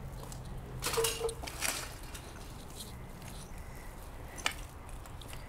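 Footsteps crunching over broken concrete, glass and litter, a few uneven crunches and clinks, heaviest about a second in, with one sharp click about four and a half seconds in.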